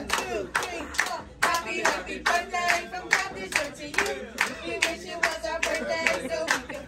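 Rhythmic hand clapping, about three claps a second, with voices singing along.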